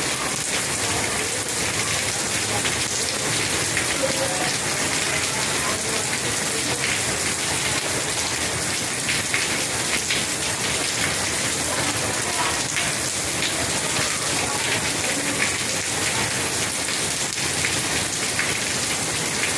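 Steady rain falling and pattering on surfaces, a constant hiss with many small drop ticks.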